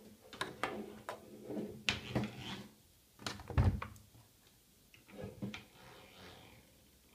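A series of clicks and knocks, with one heavy thump about three and a half seconds in and a few more knocks about five seconds in.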